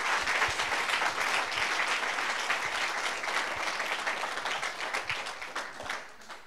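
Congregation applauding, many hands clapping together, thinning out and dying away near the end.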